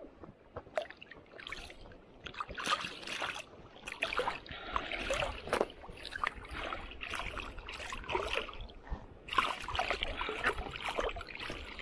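Water splashing and sloshing in irregular bursts, busier from about two seconds in.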